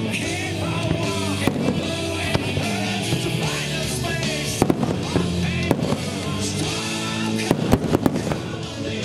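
Fireworks bursting over music with a singing voice: sharp bangs and cracks land at irregular moments, a cluster of them about five to eight seconds in, while the music plays on without a break.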